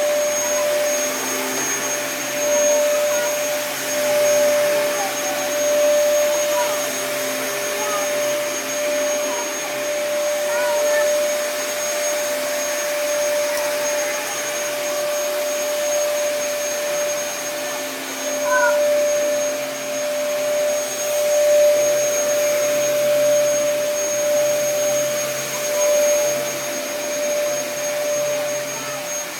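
Vacuum cleaner (Hoover) running steadily, a constant whine over a rushing hiss, its loudness swelling and dipping every second or two.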